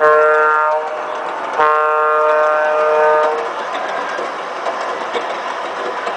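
Horn of an MTH G-scale model diesel locomotive's onboard sound system, a short blast followed by a longer one. Underneath is the steady running noise of the train passing close by.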